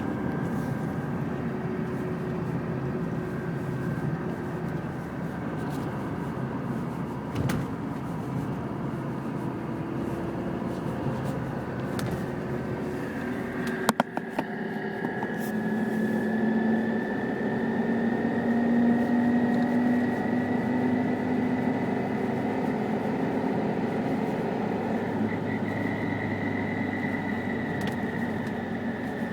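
Chevrolet Niva running with a steady mechanical noise, a high whistle that glides slowly upward from about halfway and a lower howl beneath it: the noise, howl and whistle the owner is showing as a fault. A sharp click about halfway through.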